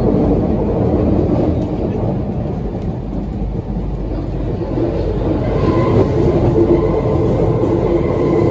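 Paris Métro train running, heard from inside the carriage: a steady loud rumble. About five seconds in, a steady whine joins it.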